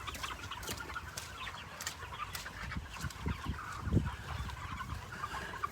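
A large flock of chickens clucking and chattering continuously, many birds at once, with a few low thuds about four seconds in.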